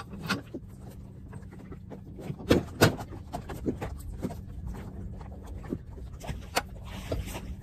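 Clanks and knocks of a metal mud-motor frame and shaft being handled and set down on wooden dock boards, several sharp ones about two and a half to three seconds in, over a steady low hum.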